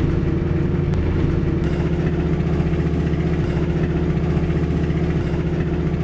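Truck engine running steadily, heard from inside the cab while driving on an unpaved dirt road, with a steady low hum and some road noise. The note shifts slightly about a second and a half in.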